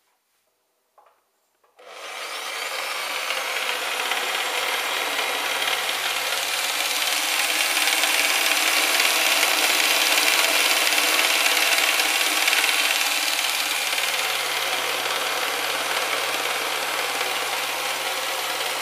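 Rockwell RS3708 jigsaw, mounted upside down under a table, switched on about two seconds in after a couple of faint clicks, then running steadily with a loud buzzing rasp over a low hum, a little louder around the middle.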